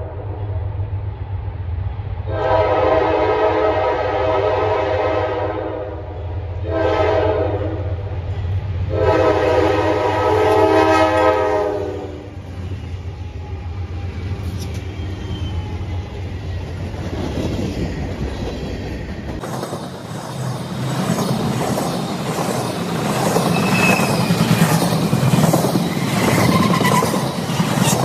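Pan Am Railways freight train's diesel locomotive horn sounding the grade-crossing pattern: the end of a first blast, then long, short, long, over the steady rumble of the approaching locomotives. The diesel locomotives pass, and from about two-thirds of the way in the tank cars roll by with clickety-clack of wheels over rail joints and a few faint brief wheel squeals.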